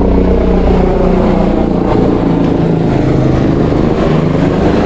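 Helicopter passing by, its engine and rotors loud and steady.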